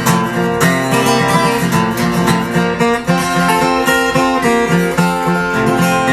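Acoustic guitar playing chords in an instrumental passage with no singing, with frequent picked and strummed attacks.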